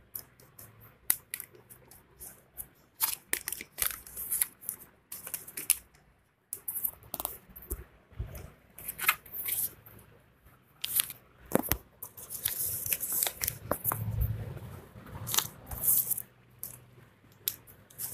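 Tape and plastic packaging being peeled and crinkled by hand in irregular crackles, with scattered sharp clicks and taps as a new tablet and its keyboard dock are handled.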